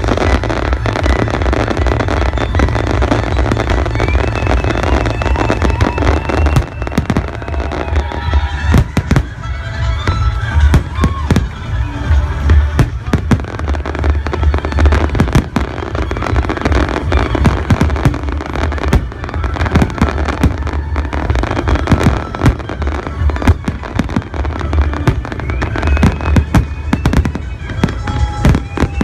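Fireworks display: shells bursting in many sharp, irregular bangs with deep booms, over accompanying music with a melody line.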